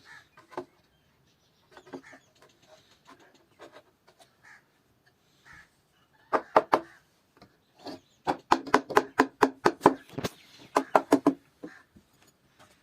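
Sharp knocks on wood: a few faint scattered taps, then a quick pair a little before halfway, then a fast run of about five strikes a second lasting some three seconds.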